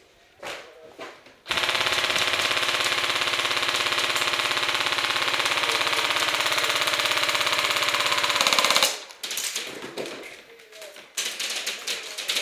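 Airsoft electric gun firing one long full-auto burst of about seven seconds, a fast even rattle that starts and stops abruptly, followed by scattered clicks and snaps of more shots.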